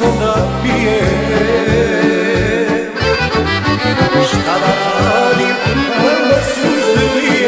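Instrumental break of a Serbian folk song, with an accordion leading over the band's bass and rhythm backing.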